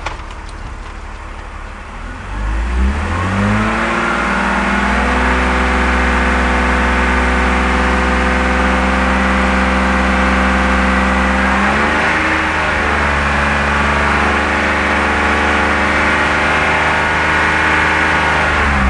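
BMW E46 3 Series inline-six engine idling, then revved up a couple of seconds in and held steady at about 2500 rpm, stepping up to about 3000 rpm a little past halfway and held there. It is a raised-rpm test on an engine running lean, to see whether the fuel trims fall as they would with a vacuum leak.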